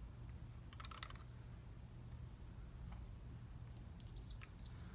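A few faint, short clicks from handling a plastic handheld TDS meter, over a low steady background hum.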